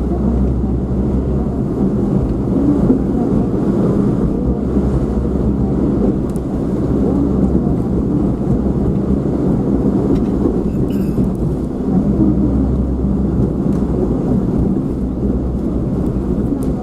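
Steady low, muffled rumble of a vehicle on the move, like road and engine noise heard from inside a car, with no distinct events.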